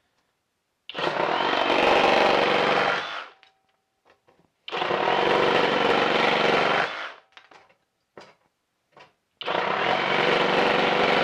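Flex 24V brushless reciprocating saw with its orbital action on, cutting through a wooden 1x6 board three times in a row. Each cut lasts about two and a half seconds, and the saw stops between cuts.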